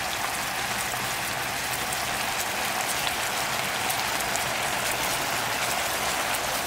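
Marinated meat with garlic cloves and green chili peppers sizzling in a hot pan: a steady frying hiss with fine pops and crackles.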